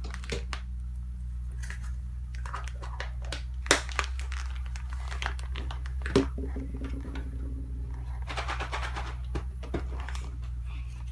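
Small plastic toys and hollow plastic eggs being handled: scattered light clicks and taps, with a couple of sharper knocks and a stretch of crinkling a little past the middle, over a steady low hum.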